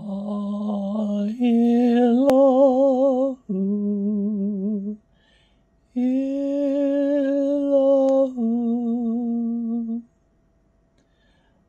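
A man's voice chanting slow, long held notes with a wavering pitch, in two phrases of a few notes each with a pause about five seconds in.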